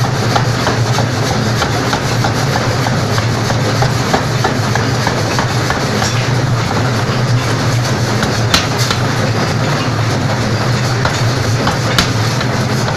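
A power hammer pounding a red-hot steel bar in quick, continuous strokes, a dense run of metallic knocks over a steady low hum from the machine.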